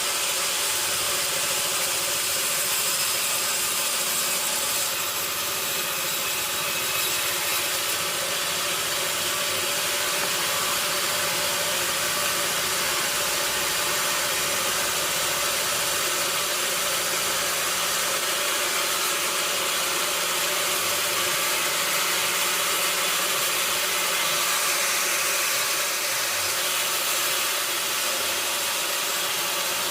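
Sawmill saw machinery running steadily under power, a constant hiss over a steady hum.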